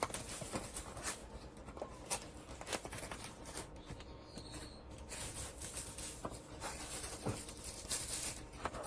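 Quiet unboxing handling: a cardboard box being opened and spray bottles pulled out of it, with rustling plastic wrapping and scattered light clicks, scrapes and taps.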